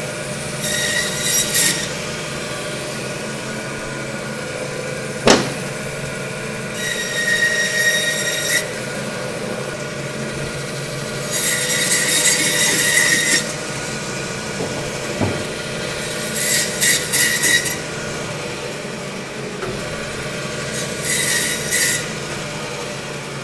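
Butcher's meat bandsaw running with a steady hum, its blade squealing in five bouts of one to two seconds as it cuts through beef vertebra bones. A sharp click about five seconds in.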